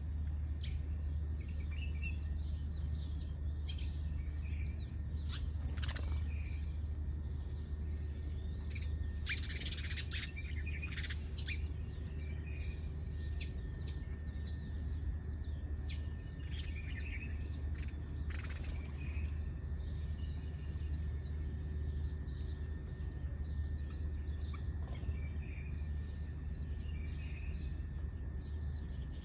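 Sparrows chirping: a continual scatter of short, high chirps, busiest and loudest about nine to eleven seconds in, over a steady low hum.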